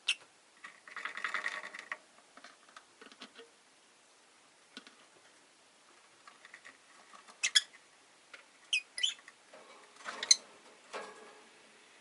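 Rosy-faced lovebirds giving a few short, sharp high chirps, two in quick succession near the middle, amid soft scratching and rustling of the birds moving about.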